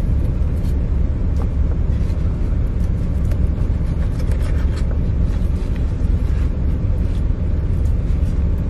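Steady low rumble of a truck's idling engine, heard inside the sleeper cab, with a few faint taps and rustles of a knife cutting ribs on paper.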